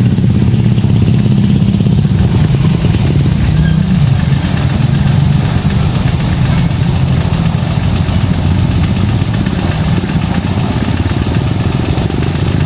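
Pressure washer running steadily: a continuous pulsing motor-and-pump drone, with the hiss of the water spray over it.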